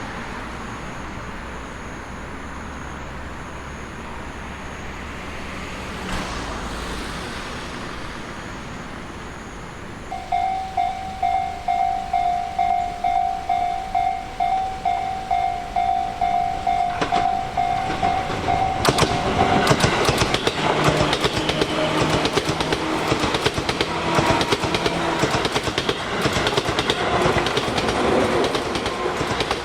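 A railway level-crossing bell dinging about twice a second, then an electric commuter train passing, its wheels clattering over the rail joints with a steady motor hum under them.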